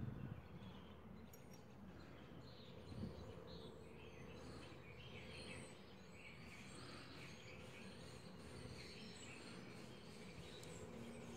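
Near silence: faint steady background hum and hiss.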